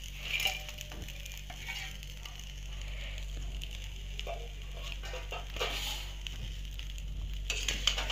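A metal spatula scraping and stirring spiced rice in a metal pan in a few short strokes, over a faint sizzle of frying.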